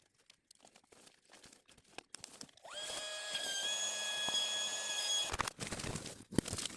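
Small electric air-mattress pump running with a steady high whine for about two and a half seconds, then cutting off abruptly, with a few clicks after.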